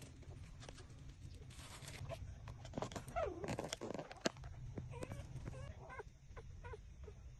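Newborn puppies squeaking and whimpering while they nurse, with a longer wavering cry about three seconds in. Small clicks of suckling run between the squeaks.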